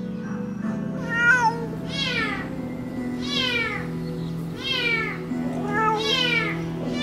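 Adult cat crying with about five long meows, each falling in pitch, one after another every second or so: a mother cat calling for her kitten trapped in a drain. Steady background music runs underneath.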